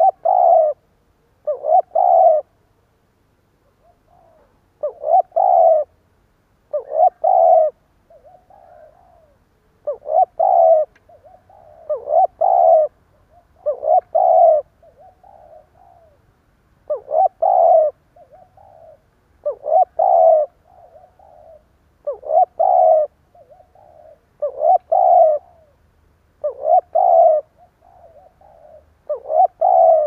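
Spotted dove cooing over and over: loud coos, mostly in quick pairs, repeated every two to three seconds with softer notes in between. This is the stuttering 'cà lăm' coo of a decoy dove, used to call in wild doves.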